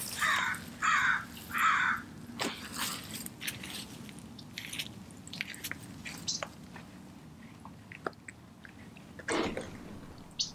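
Doberman chewing raw chicken with the feathers on: three loud crunches in the first two seconds, then softer scattered clicks and smacks, and another crunch near the end.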